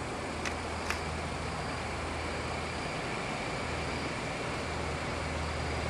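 Steady outdoor background hiss and low hum after a fountain firework has burned out, with two small sharp pops about half a second and a second in as the last embers die.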